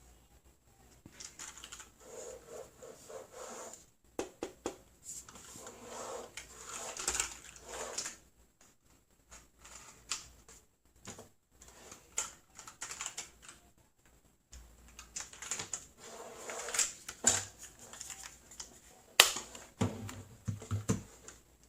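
Irregular clicking and plastic clatter from a Redragon K556 mechanical keyboard with brown switches as its keys and case are worked by hand, with short pauses and one sharper click near the end.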